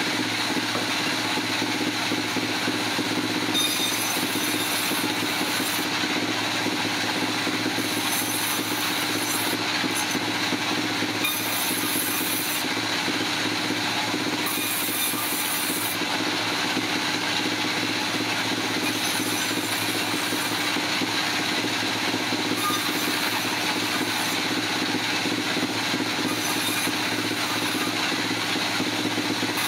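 Sawmill machinery running steadily, with a high hiss that comes and goes for a second or two every three to four seconds.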